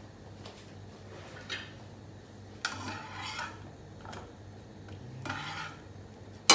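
A metal spatula scrapes across a frying pan and turns slices of toast, in short scrapes and taps, with one sharp knock near the end, the loudest sound.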